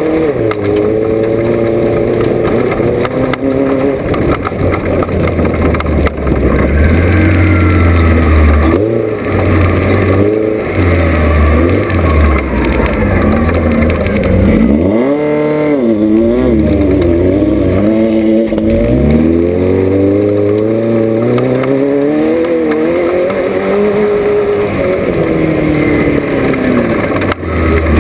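Off-road race car's engine running hard under way, its pitch rising and falling continually with the throttle and gear changes, with a sharp drop and quick climb back about halfway through.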